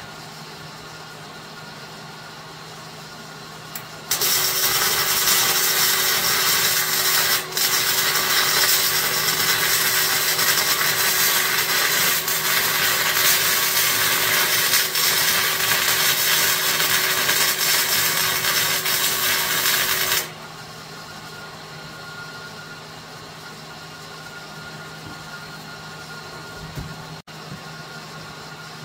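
Electric arc welding on steel: a continuous crackle and sizzle of the arc that starts about four seconds in, breaks for a moment a few seconds later, and stops about twenty seconds in.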